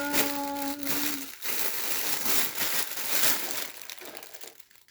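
Plastic packaging crinkling and rustling as items are handled and unwrapped from a box. It starts with the end of a held sung "da" note in the first second or so.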